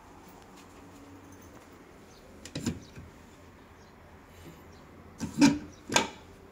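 Small hinged wooden hatch in a wall being handled, opened and swung, giving light wooden knocks and clacks: a pair about two and a half seconds in, then a louder cluster near the end.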